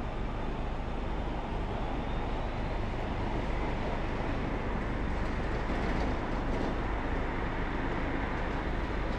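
Steady road and traffic noise of a car driving through city streets, a low, even rumble with no distinct events.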